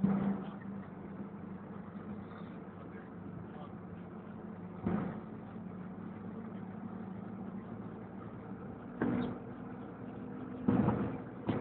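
MAN TGA 410 truck's diesel engine running steadily under way, heard inside the cab. Short knocks or rattles break through three times, about five, nine and eleven seconds in.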